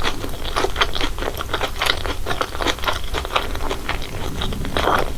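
Close-miked eating sounds of corn cheese Buldak spicy fried noodles: a steady run of quick wet chewing clicks and mouth smacks, with a slightly longer wet burst near the end.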